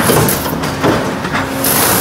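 Red Bud Industries stretcher leveler and roll feed coil-processing line running, metal sheet feeding at speed through the rollers with steady machine noise and a few knocks. A high hiss starts about a second and a half in.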